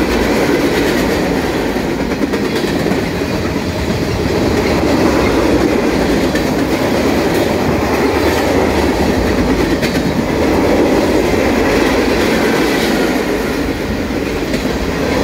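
Freight train boxcars and a covered hopper car rolling past close by: steel wheels on the rails make a steady, loud noise with repeated clicking over the rail joints.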